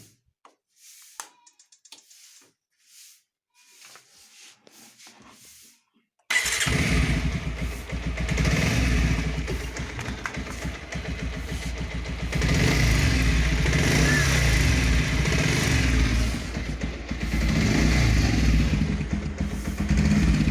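Bajaj Pulsar 125 BS6 motorcycle's single-cylinder engine: a few faint clicks, then the engine comes in suddenly and loud about six seconds in and runs, swelling louder twice as it is revved. The owner complains of a 'tik tik' ticking noise from this engine.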